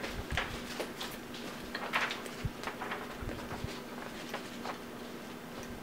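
Close-up chewing of a breaded fried chicken finger: a bite near the start, then scattered small crunches and wet mouth clicks.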